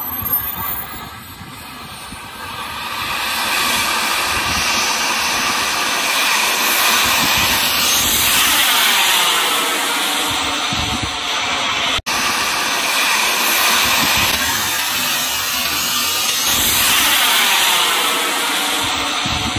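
KingTech K-55 turbine of a Freewing MiG-29 RC jet: a high whine rising at the start, then the loud rush of the turbine at full power as the jet takes off and flies by, swelling twice as it passes overhead. There is a brief dropout about midway.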